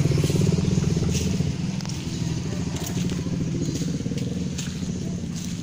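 An engine running steadily with a rapid low pulsing, slowly growing fainter.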